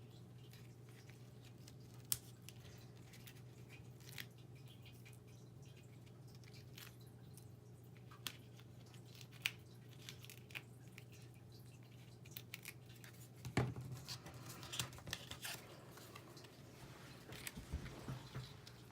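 Cardstock and adhesive backing being handled on a craft table: scattered small clicks and rustles, with a denser cluster about two-thirds through, over a steady low hum.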